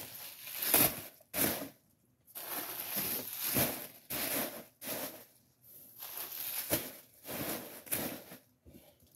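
Plastic packing material crinkling and rustling in irregular bursts with short pauses, as it is handled and pulled out of a cardboard box.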